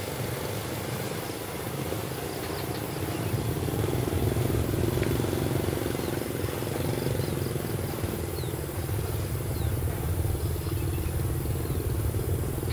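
Long train of fully loaded coal wagons rolling away along the track: a steady low rumble and clatter of wheels on rail, swelling a little about four seconds in.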